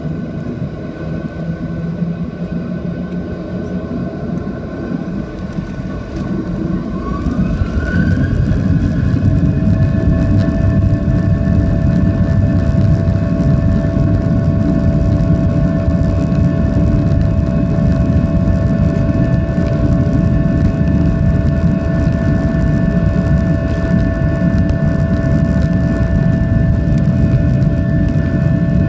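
Airliner's jet engines heard from inside the cabin, spooling up to takeoff thrust with a rising whine about seven to nine seconds in. They then run loud and steady with several held tones over a deep rumble as the takeoff roll gets under way.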